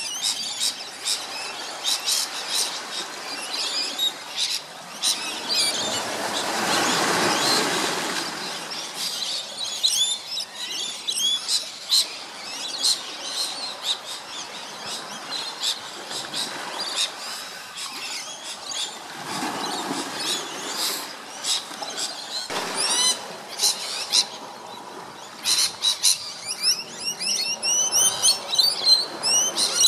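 Birds calling in rapid series of short, high-pitched whistled chirps, growing denser and louder near the end, with a broad rush of lower noise about six to eight seconds in.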